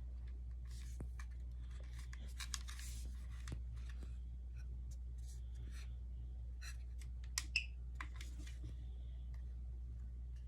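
Hands unpacking and handling a plug-in carbon monoxide detector and its packaging: scattered rustles, scrapes and small clicks, with two sharper clicks about seven and a half seconds in. A steady low hum runs underneath.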